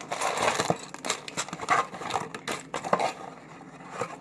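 Cardboard box and plastic packaging being handled and opened: irregular rustling, scraping and clicking, thinning out near the end.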